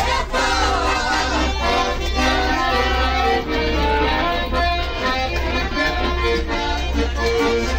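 Accordion playing a lively tune, with melody and chords over a steady pulsing beat in the bass.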